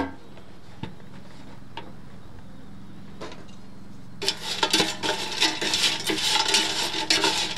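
A wooden spatula stirring and turning air-fried french fries in the perforated non-stick basket of an air fryer, a dense scraping and rustling with many small clicks that starts about four seconds in. It is preceded by a single knock as the basket is set down, then a few seconds of quiet.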